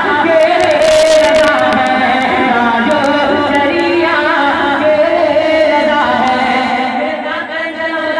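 A man singing a naat, a devotional Urdu song, into a microphone, drawing out long, wavering held notes.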